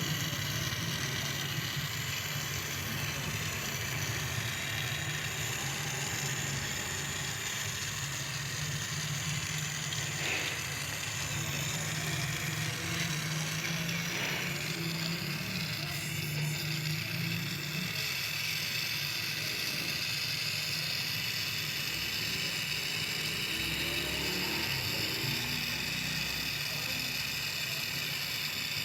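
A steady low machine hum with faint mechanical clicks and rattles over it; the hum eases off about two-thirds of the way through.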